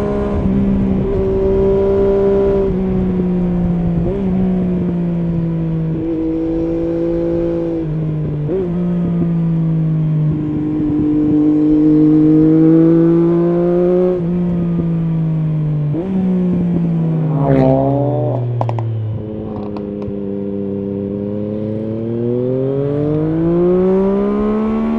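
Triumph Street Triple S three-cylinder engine through an SC Project SC1-R slip-on exhaust with its dB-killer fitted, heard from the rider's position while riding. The engine note rises and falls with the throttle and steps at gear changes. About halfway through it winds down with a few sharp cracks from the exhaust, then pulls up in pitch again near the end.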